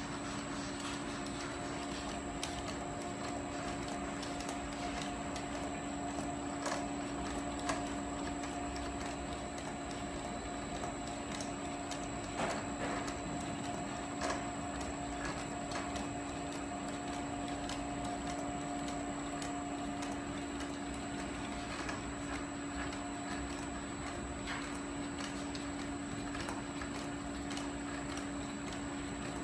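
Laser marking machine with a card-feeding conveyor running: a steady hum with a faint high whine, and irregular light clicks and ticks as the cards are fed through.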